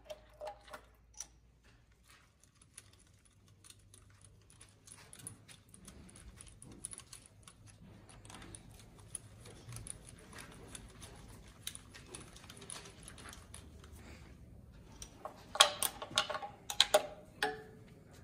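Light metallic clicks and taps of a screwdriver and a compression-tester hose fitting being handled on a diesel engine's cylinder head, with a louder run of clinks near the end.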